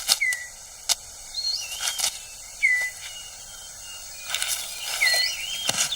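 Rainforest birds calling: a short whistle sliding down, repeated three times about two and a half seconds apart, with higher wavering calls between. Sharp clicks and rustles are scattered through it.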